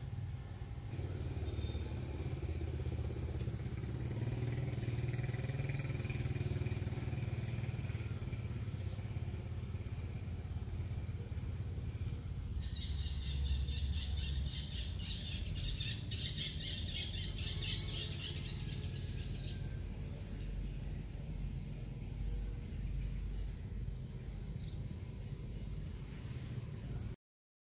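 Outdoor ambience: birds chirping in short, repeated falling calls over a low steady rumble, with a high, rapid buzzing chatter for several seconds in the middle. The sound cuts off abruptly just before the end.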